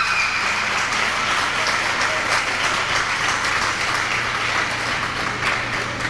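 Audience applauding: a steady patter of clapping with a few louder individual claps standing out.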